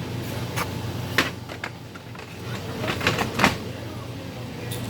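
Plastic paper tray of an HP LaserJet M401n laser printer being slid back in, with a run of clicks and knocks, the loudest about three and a half seconds in, over a steady low hum.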